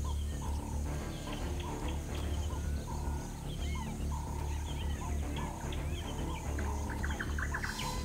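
Small birds chirping and calling in the bush, with one short call repeating about twice a second, over a steady low hum.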